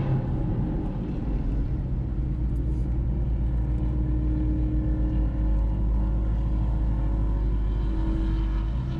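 Steady low engine and road rumble heard from inside a moving Ford Mustang's cabin. A faint steady hum comes in about halfway through.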